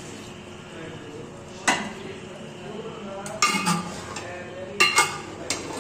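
Metal ladle stirring in a metal cooking pot of thick curry, knocking and clinking against the pot's side: one sharp clink a bit under two seconds in, then a cluster of clinks and scrapes in the second half.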